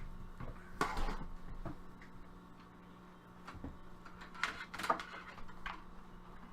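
Scattered light clicks and knocks of things being handled at close range, the loudest a little under five seconds in, over a faint steady low hum.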